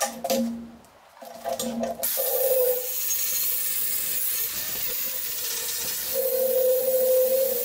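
DeWalt angle grinder starting about two seconds in and grinding the torch-cut edge of a steel plate, a steady motor whine over the grinding noise. It gets louder as it bites harder about six seconds in.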